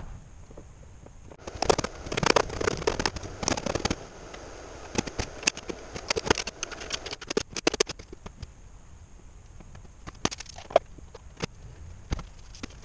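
Hand tools and small metal parts clattering and clicking as they are picked up and set down on a metal-topped workbench. The clatter is dense for several seconds, then thins to a few scattered clicks.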